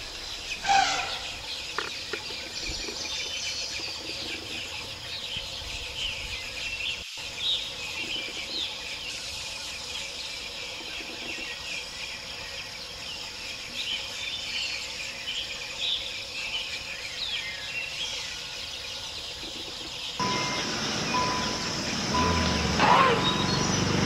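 Outdoor forest ambience with many short bird chirps over a steady hiss. About twenty seconds in it changes to a louder, rougher background with a steady high tone running through it.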